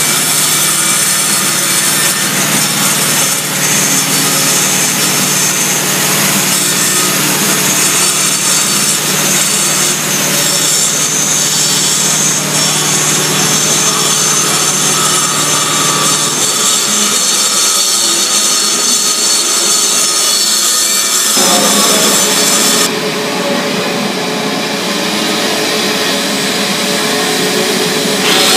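Power tool running continuously on a concrete floor, cleaning out cracks and joints before they are filled. The sound changes abruptly a few times in the second half.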